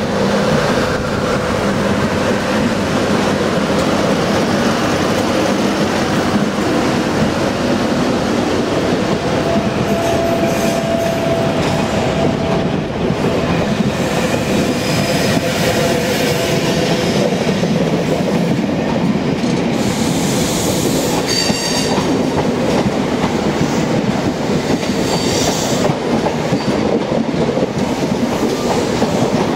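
Caledonian Sleeper coaches running past at close range, a steady wheel-on-rail rumble as the train gathers speed, with a few brief wheel squeals.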